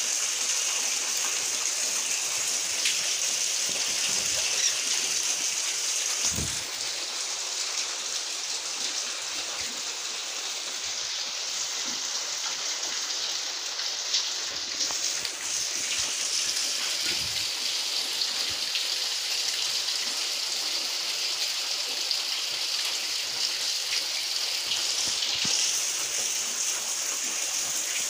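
Heavy rain pouring down steadily, an even dense hiss of water on paving, plants and roof.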